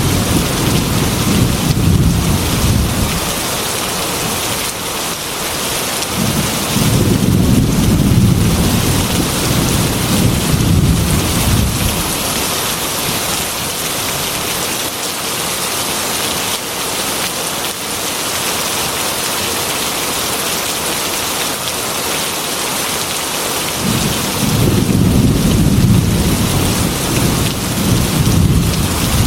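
Heavy rain drumming steadily on a metal roof, with rolling thunder rumbling three times: at the start, again for several seconds a quarter of the way in, and near the end.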